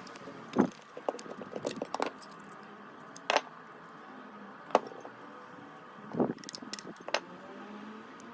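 Irregular light clicks and knocks of small hard objects being handled, over a faint steady hum.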